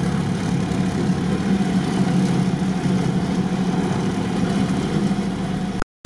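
UAZ off-road vehicle's engine running steadily as it drives slowly, a constant low hum over road noise, cut off abruptly near the end.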